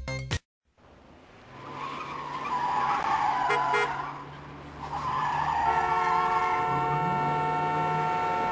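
A car swelling past with a screech of tyres, then a car horn sounding steadily for nearly three seconds near the end.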